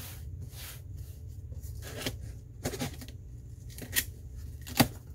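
Scissors cutting and scraping through the packing tape on a cardboard shipping box, with several sharp ticks and taps, the loudest near the end.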